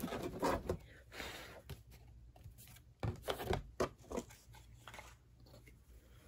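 Hands handling a cardboard craft sign and a spool of ribbon on a tabletop: short, faint rustles and scrapes, one cluster right at the start and another about three to four seconds in.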